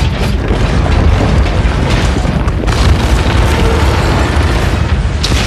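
Building collapse sound effects: a loud, continuous deep rumble of crashing debris, with sharper crashes about two seconds in, again shortly after, and near the end.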